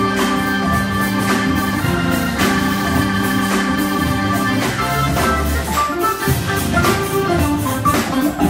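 Live band playing: a Hammond B3 organ holds steady chords over a drum kit keeping time.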